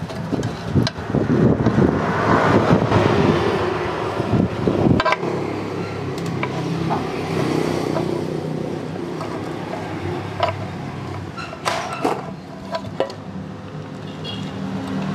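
A motor vehicle engine running, uneven and loud for the first few seconds, then settling to a steady low hum, with scattered metallic clicks and taps of hand tools on metal parts.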